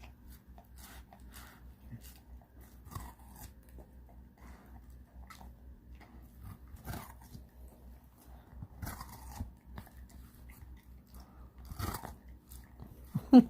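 A pit bull chewing watermelon, with irregular crunching bites. A brief louder sound comes just before the end.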